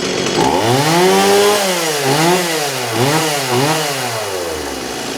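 Stihl MS170 two-stroke chainsaw engine being revved: it rises from idle about half a second in, is blipped up and down three times, and drops back to a low idle near the end. It runs cleanly after years of sitting.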